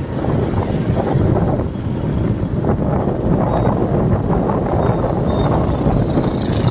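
Wind buffeting the microphone of a moving motorcycle: a steady, dense rumble of wind and road noise.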